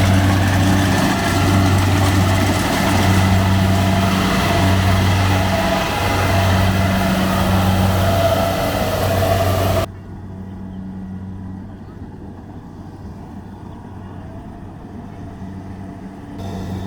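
Combine harvester running loud and steady with a deep engine hum; about ten seconds in, the sound cuts abruptly to a quieter, steadier hum of the machine.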